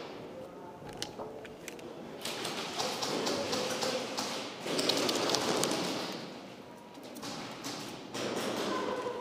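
Rustling and bumping of a player's gear as he moves, with scattered taps and thuds. A few sharp clicks come in the first two seconds, then a long stretch of rustling that dies down and picks up again near the end.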